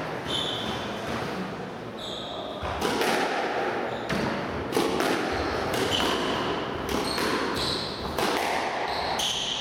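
Shoes squeaking on a squash court's wooden floor, then a rally starts a few seconds in: the ball smacks off rackets and walls in quick succession, with more shoe squeaks.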